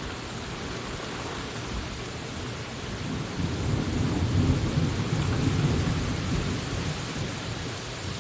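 Steady rain with a roll of thunder that swells about three seconds in, rumbles for a few seconds and fades near the end.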